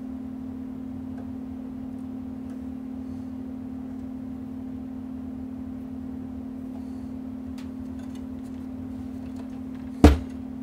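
Steady low hum with a few faint clicks, and one loud sharp knock near the end.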